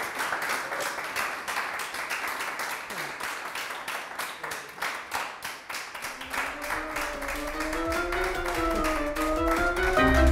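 A small audience applauding. About six seconds in, music fades in under the clapping and grows louder toward the end.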